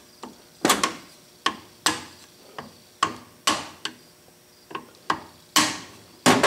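Hammer blows on a steel punch knocking the end bell off a Dayton half-horse capacitor-start electric motor: about a dozen sharp metallic taps at uneven intervals, some ringing briefly.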